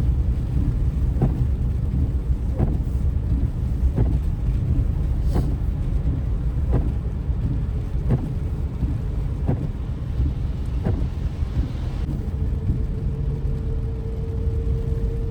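Car cabin road and engine rumble while driving slowly in snow, with a short knock about every second and a half, in the rhythm of windshield wipers sweeping, for the first two-thirds or so. A faint steady tone comes in near the end.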